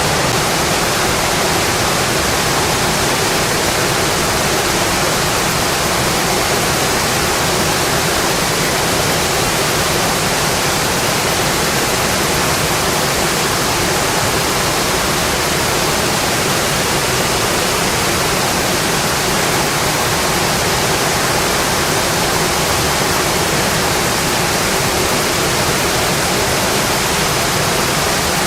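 Steady, dense rainfall: an even hiss of rain with no single drops, thunder or other sounds standing out.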